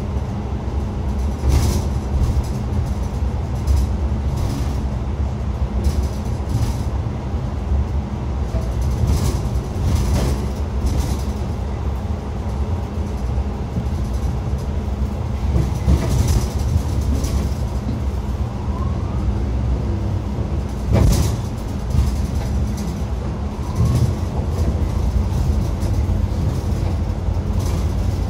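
Xiamen King Long XML6125JHEVG5CN1 hybrid city bus under way, heard inside the cabin: a steady low rumble with scattered knocks and rattles.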